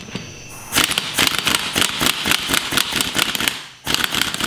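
Pneumatic impact wrench hammering as it runs the top nut down onto a coilover strut. It starts about a second in, stops briefly near the end, then hammers again.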